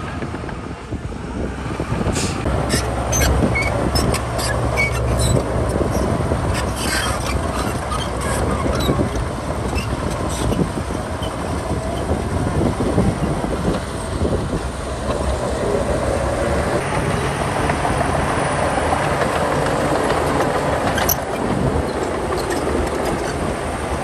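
A bulldozer's diesel engine running steadily under load, with its steel tracks clattering. It gives a run of sharp metallic clanks and knocks from about two to eleven seconds in, and one more near the end.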